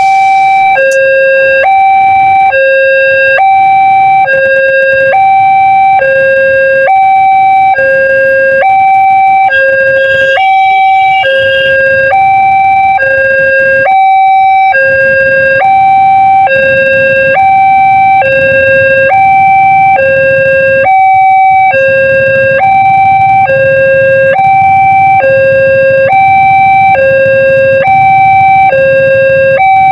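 Railway level-crossing warning siren sounding its two-tone alarm: a high and a low tone alternate, each about half a second long, broken off briefly twice. A low rumble runs underneath in the second half.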